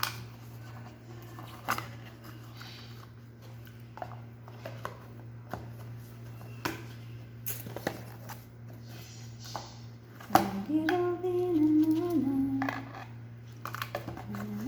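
Scattered clicks and light rustling of plastic-wrapped watch packaging being handled and opened. About ten seconds in, a voice starts carrying a tune, louder than the handling.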